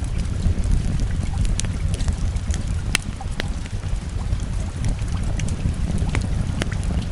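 Wood fire crackling, a sharp pop every second or so, over a steady low rumble of rain.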